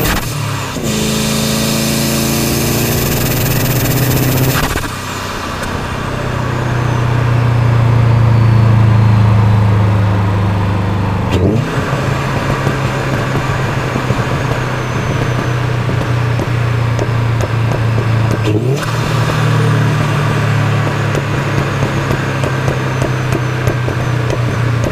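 Exhaust of a 2004 Subaru Impreza WRX's turbocharged flat-four, running through a decat straight-through system with a back box, heard right at the tailpipe while driving. The note rises and falls under load and cuts out briefly several times before picking up again, with wind rushing past the tail of the car.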